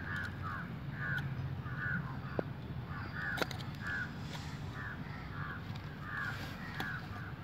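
A crow cawing over and over, two to three short caws a second, with a sharp click about halfway through.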